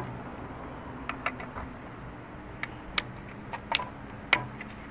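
Irregular light clicks and taps as wire connectors and plastic parts are handled and fitted inside the open plastic handle housing of a Ryobi 10-inch miter saw, about eight in all.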